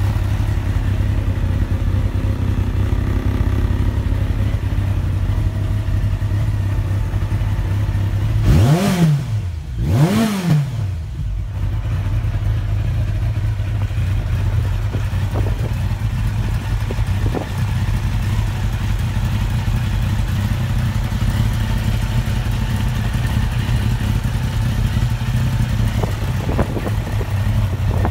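Yamaha XJR1300 SP's air-cooled inline-four engine on aftermarket exhausts, idling steadily. About nine seconds in the throttle is blipped twice, a second and a half apart, each rev rising and dropping back to idle.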